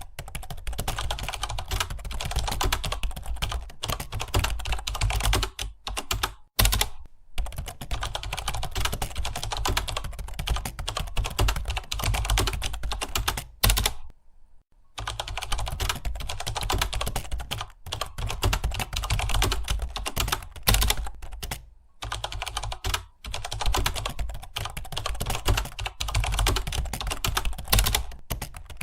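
Computer keyboard being typed on fast and continuously, a dense run of key clicks with a few short pauses, the longest lasting about a second near the middle.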